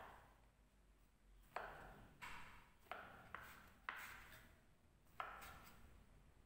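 Kitchen knife cutting a block of tempe on a wooden cutting board: about six separate cuts, each a sharp knock of the blade meeting the board.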